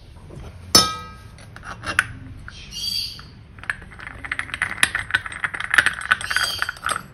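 A sharp metal clink that rings briefly about a second in. Then a dense run of small metallic clicks and scraping as the brass sev press's screw top is fitted and turned on its threads.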